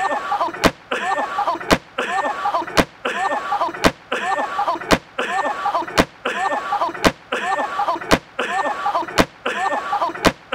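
A sharp slap of an inflatable raft hitting the water, with a short voiced cry, looped as the same snippet about once a second, ten times over.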